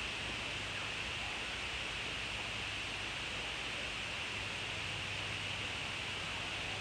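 Steady background hiss with a faint low hum underneath, unchanging throughout, with no distinct events.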